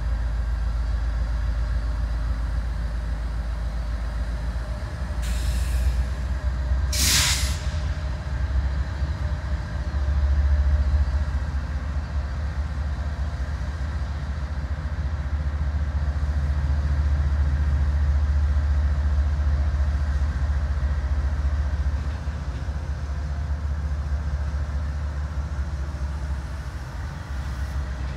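Canadian National diesel freight locomotives rumbling at low throttle as the train creeps forward, the rumble swelling about ten seconds in. Two short hisses of released air about five and seven seconds in, the second louder.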